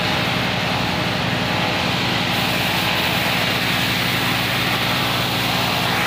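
Spray gun hissing steadily as it sprays finish onto a wooden tabletop, over the constant hum of the motor that drives it.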